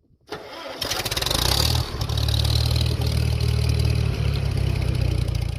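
Diesel tractor engine coming up and running steadily with a deep low drone and a hiss on top. It starts faintly, swells about a second in, and cuts off abruptly near the end.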